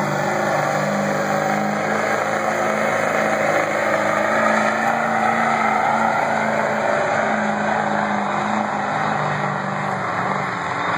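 Modified stock pickup truck's engine at full throttle under heavy load, pulling a weight-transfer sled in a truck pull; a loud, steady engine note held without a break.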